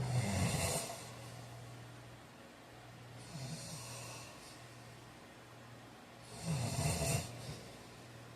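A sleeping man snoring: two loud snores about six seconds apart, one at the start and one near the end, with a softer breath between them.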